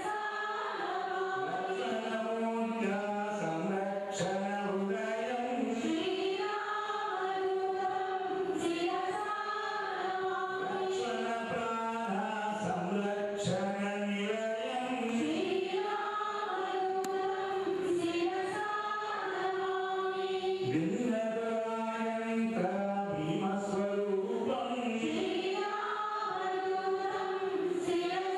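Hindu devotional singing: a group of voices chanting a slow melody in long held notes that move from phrase to phrase.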